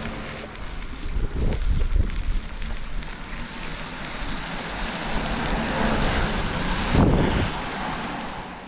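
Wind buffeting the microphone and road noise while riding a bicycle, with heavy low gusts about two seconds in and again about seven seconds in.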